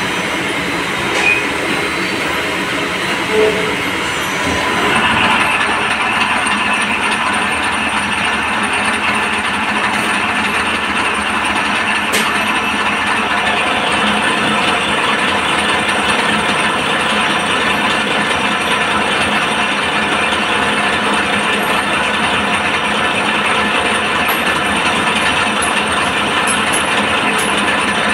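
CNC lathe running with a steady mechanical noise. Two brief knocks come in the first few seconds, and about five seconds in the running noise grows louder and fuller, then holds steady.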